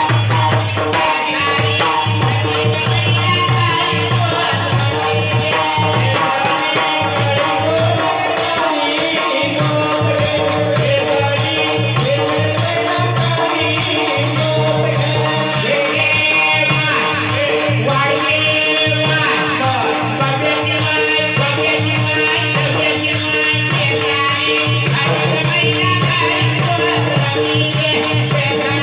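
Bharud, a Marathi devotional folk song: a singer's melody over steady held drone tones and continuous rattling percussion.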